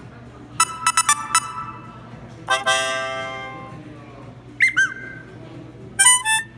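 Samsung Galaxy S21 Ultra notification tones played one after another. First comes a quick run of about five bright notes, then a single chime that rings out and fades over about a second and a half. Next are two quick sliding notes, and near the end there is another fast run of notes.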